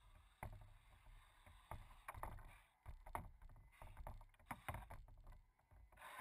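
Small waves slapping irregularly against the hull of a drifting radio-controlled catamaran, faint, with a low rumble of water and wind, picked up by a camera mounted on the boat. No motor can be heard running.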